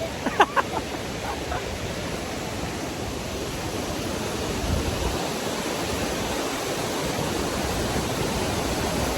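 Steady rushing of a waterfall. A brief sharp sound about half a second in is the loudest moment.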